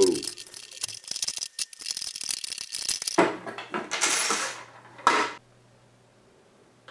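Allen key and small wrench tightening a screw and nut on a 3D-printed plastic hinge: rapid small metallic clicks and rattles. About three seconds in, the plastic container is picked up and scraped over the wooden table for about two seconds, and the sound then stops abruptly.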